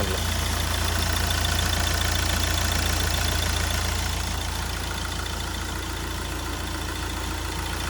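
Hyundai i20's diesel engine idling steadily after a head gasket replacement, with a faint injector tick. The mechanic judges the sound perfectly normal now.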